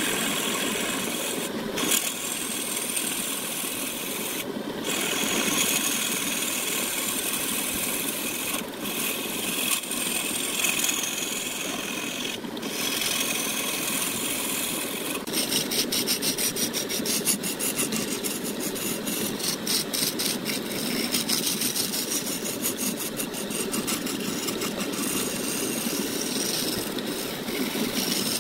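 A wooden workpiece spinning on a running lathe, with a continuous scraping and rasping against the wood and a few brief breaks. From about halfway through the scraping takes on a fast, even flutter.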